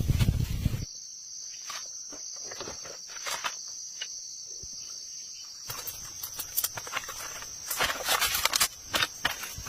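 Insects chirring in one steady high drone, with scattered clicks, knocks and rustling over it; the rustling is loudest at the very start and again in the last few seconds.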